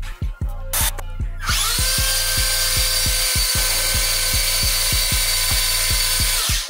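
Electric motor and drivetrain of a LaTrax Teton 1/18 RC truck whining at full throttle while its 3D-printed TPU tires spin on smooth concrete, the car straining against a cord tied to a hook scale. It spins up about a second and a half in and winds down near the end; the tires slip for lack of grip. Background music with a steady beat runs under it.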